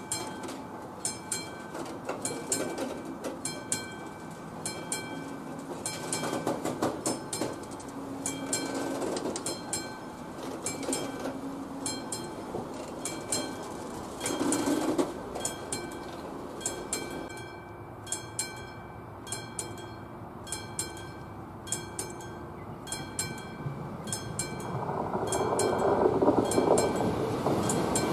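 AŽD 71 level-crossing warning bell ringing steadily, a little more than once a second. Over it come the clatter and rumble of the last freight hopper wagons rolling past, which die away about halfway through. Near the end the rumble of a second, approaching train rises.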